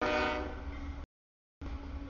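CSX freight locomotive's horn sounding the last blast of its grade-crossing warning as the engine enters the crossing; the blast fades and cuts off suddenly about a second in. After a short gap, the low rumble of the locomotives and cars rolling past.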